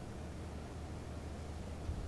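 Quiet room tone: a low steady hum and faint hiss, with a small tap near the end.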